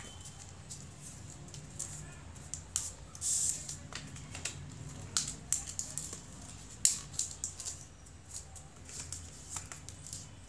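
Craft paper rustling and crinkling as fingers fold and crease it, with irregular sharp crackles throughout, the loudest a little under seven seconds in.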